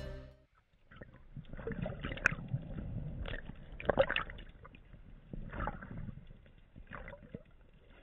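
Background music stops about half a second in, leaving muffled underwater sound through a camera housing: irregular gurgling, bubbling and knocks from a diver handling a speared fish, loudest about four seconds in.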